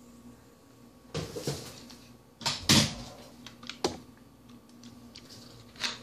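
Scattered knocks and clatters of plastic bottles being handled and set down on a tile floor, the loudest a little under three seconds in, with a sharp click about four seconds in.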